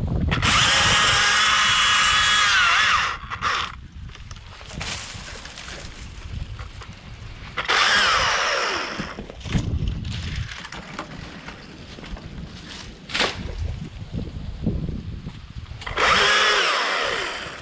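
Stihl chainsaw revved up to full throttle three times, once for about three seconds and then twice for shorter spells, cutting through branches. It drops back to a low idle in between, and its pitch falls as the second cut ends.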